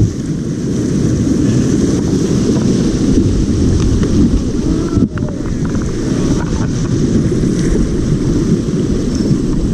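Rushing river water around a raft in rapids, heard muffled and heavy in the low end through a GoPro's waterproof housing. The sound drops briefly about five seconds in.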